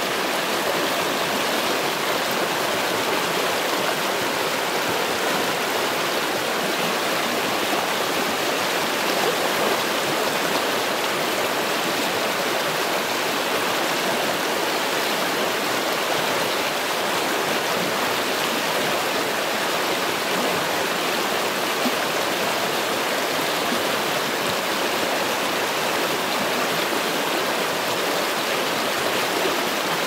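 Shallow stream rushing over rocks through small rapids: a steady, unbroken rush of water.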